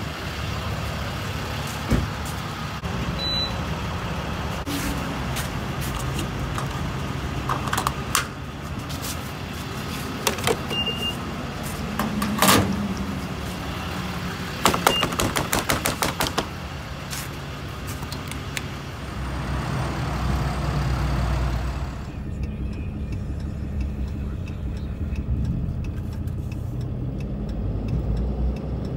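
Footsteps and scattered knocks beside an idling Ram 3500 Cummins straight-six turbodiesel, with one loud knock about twelve seconds in. About twenty-two seconds in the cab door shuts, and the diesel goes on as a low rumble muffled inside the cab.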